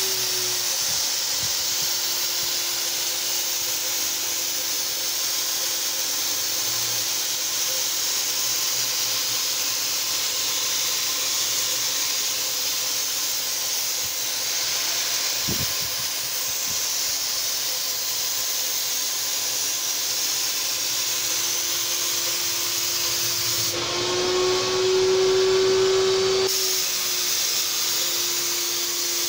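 Graco HVLP turbine paint sprayer running, with a steady hiss of air rushing from the spray gun over a steady whine. About 24 seconds in, the whine steps up slightly in pitch and gets louder for a couple of seconds, then settles back.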